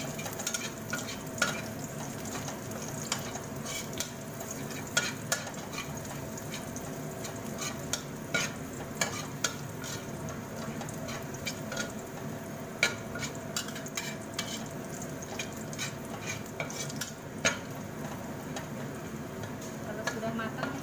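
Minced garlic sizzling in hot oil in a steel wok while a metal spatula stirs it, scraping and clicking sharply against the pan at irregular moments.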